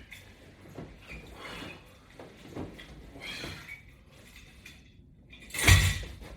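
Faint rustles and light knocks recurring about once a second as a person does strap-anchored sit-ups, with one loud thump about a second before the end.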